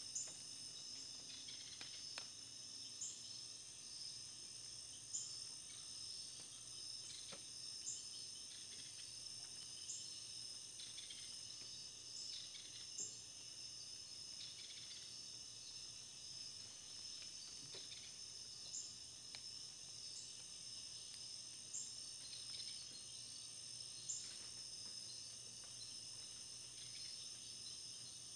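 Crickets trilling steadily at a high pitch, with short sharp chirps every few seconds at irregular spacing.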